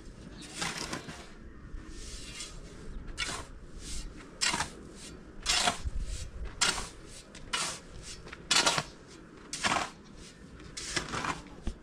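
A shovel scraping and scooping into a pile of sand, about ten strokes roughly a second apart.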